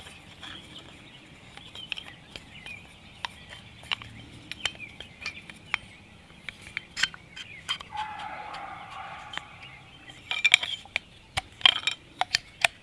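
Wooden dowel pushing a lubricated part down inside an air gun's metal pump tube: scattered clicks and knocks of wood on metal, with a squeak of the part sliding in the tube that falls in pitch about two-thirds of the way in. The clicks come thicker and louder near the end.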